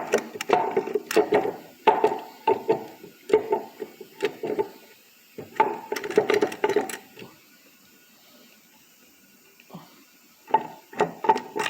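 Driveshaft center carrier bearing clunking and rattling in bursts of quick knocks that ring slightly, with a pause of a few seconds about two thirds of the way through. The bearing is worn: the owner says it needs a new carrier or maybe just a bearing.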